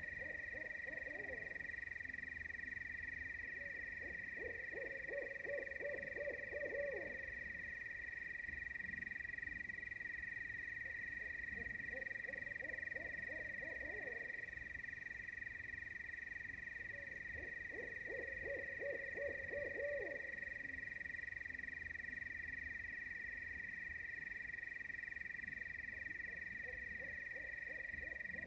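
Nighttime animal chorus: a steady, unbroken high-pitched drone, with a low trilling call of about two to three seconds repeated every six or seven seconds.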